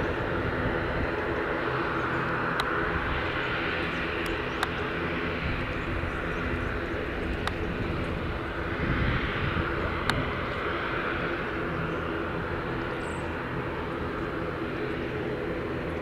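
Twin Williams FJ44 turbofan engines of a Cessna Citation CJ3 business jet running steadily at low power as it taxis and turns on the runway.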